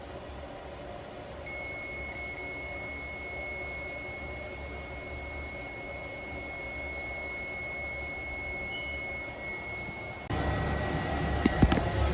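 A steady high-pitched electronic tone sounds for about nine seconds over a low steady hum, then stops abruptly; louder room noise with a few sharp clicks follows near the end.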